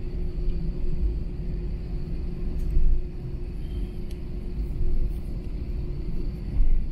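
Airbus A321 cabin rumble while taxiing: a steady low drone of the jet engines and the rolling airliner, with a steady hum running through it and three short bumps about three, five and six and a half seconds in.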